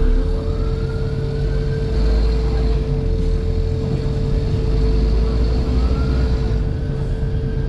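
Scania N230 bus's five-cylinder diesel engine running under way, with a steady high-pitched buzz throughout. Over it, a whine rises and falls in pitch twice, once near the start and again about six seconds in.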